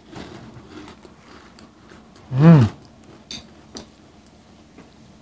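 Eating sounds: a woman chewing a mouthful of rice and spicy fried sardines, with a short hummed "mmm" of enjoyment about two and a half seconds in, its pitch rising then falling. A couple of light spoon clicks against the bowl follow.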